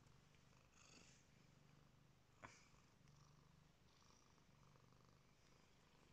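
Domestic cat purring faintly, the low purr coming and going in stretches of about a second with its breathing. A single short click about two and a half seconds in.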